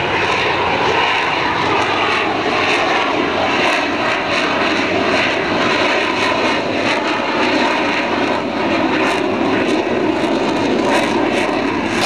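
Jet engines of an F/A-18 fighter jet, a loud steady rushing noise as the jet flies its display overhead.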